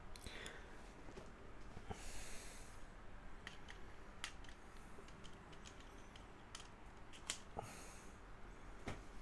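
Faint scattered clicks and taps of plastic LEGO Technic parts being handled and snapped together as the wheels are fitted, with a few short soft rustles.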